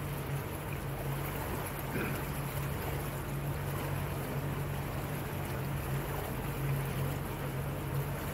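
Motorboat engine running steadily at cruising speed, a low even hum, with water rushing along the hull.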